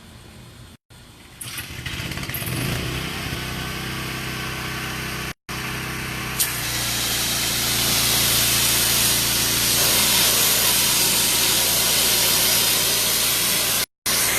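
Engine-driven pressure washer running, its steady engine hum under the hiss of the high-pressure water spray, which gets louder about six seconds in.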